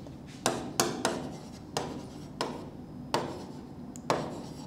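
Stylus tapping and scratching on the glass of an interactive touchscreen whiteboard while words are handwritten: about seven sharp, irregular clicks as the pen tip strikes the screen, with faint rubbing between strokes.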